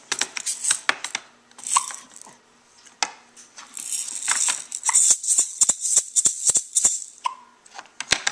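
A child's toy rattle shaken in bursts: sharp clicks over a hissy, high rattling, with a short pause about two seconds in and the longest run of shaking from about four to seven seconds in.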